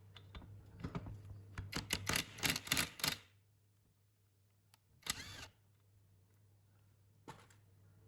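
A quick run of small clicks and knocks for about three seconds, then a short scraping burst and one more click, over a steady low hum: hand work on small engine parts.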